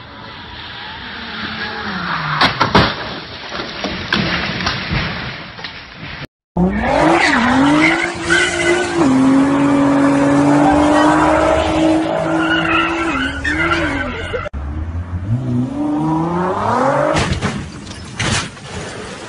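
Sports car engines and tyres across several cut-together scenes. First a car's rising noise with a sharp crack between two and three seconds in. After a brief dropout, an engine held at a high, steady pitch while the tyres skid and squeal. Near the end an engine revs up, followed by a few sharp knocks.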